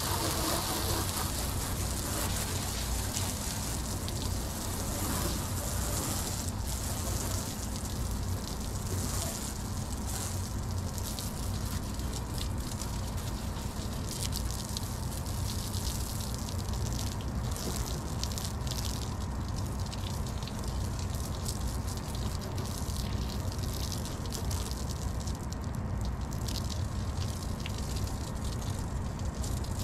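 A garden hose spray nozzle sprays a fan of water onto a yacht's white fibreglass bow bulwark, wetting it down before the wash. It makes a steady hiss and spatter over a constant low rumble.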